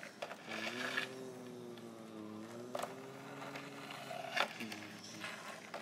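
Small electric motor of a toy RC excavator running with a steady hum that drifts slowly in pitch, with a few sharp plastic clicks.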